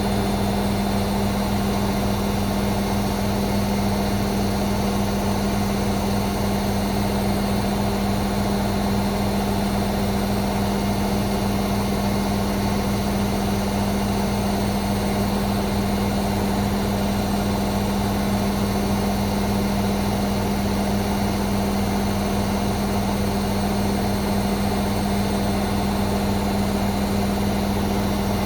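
Hoover Sportswear 1300 washing machine on its fast spin cycle, the drum spinning at a steady high speed with a constant motor hum.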